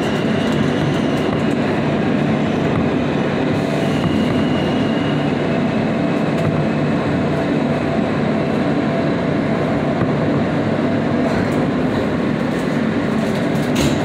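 New York City subway G train running through a tunnel station, heard from inside the car: a steady loud rumble of wheels on rail as the train slows to a stop, with a faint high squeal that comes and goes.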